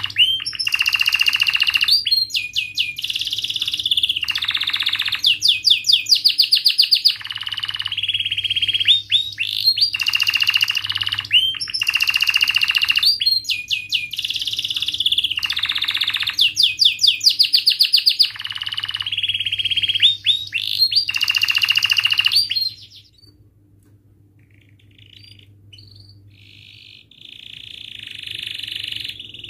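Domestic canary singing a long, loud song of fast rolling trills and held whistled notes. It breaks off about 23 seconds in and starts again, softer, a few seconds before the end.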